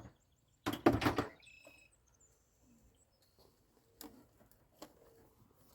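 Birds chirping faintly, with a short loud rustling burst about a second in and a few faint clicks later.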